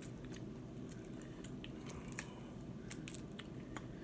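Faint eating sounds: scattered small clicks and crackles of chewing and picking at seafood, about a dozen over the few seconds.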